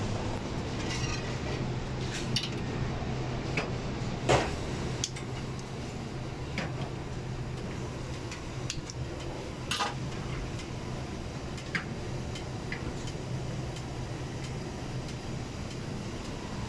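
Stainless steel pans, trays and utensils clinking and knocking now and then over a steady low kitchen hum, the loudest knock a little over four seconds in.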